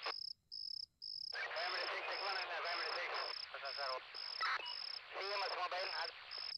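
Crickets chirping steadily, about three high chirps a second, under thin, narrow-sounding radio voice chatter that drops out for about a second near the start.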